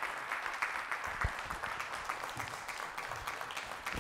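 Audience applauding steadily, with one low thump about a second in.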